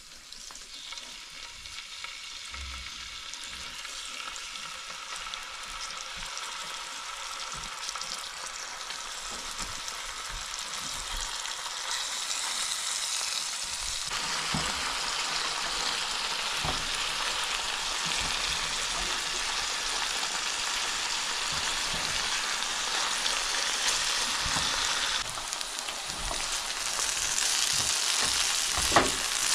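Snowshoe hare pieces and onions sizzling in a hot cast-iron skillet, the sizzle growing steadily louder. Near the end it gives way to potatoes and peppers frying in a nonstick pan, stirred with a spatula.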